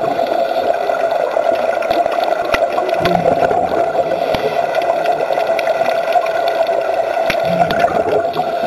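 Underwater sound: a steady hum over water gurgling and bubbling, with a few brief low thuds and scattered sharp clicks.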